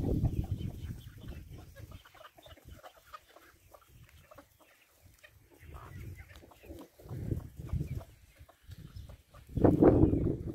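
Free-range chickens clucking, short calls scattered throughout. A low rumble comes and goes under them, heaviest in the first two seconds and loudest about a second before the end.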